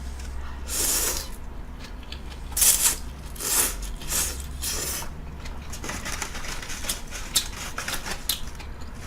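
Ramen being slurped in several short bursts, followed by a run of small wet clicks and smacks of chewing.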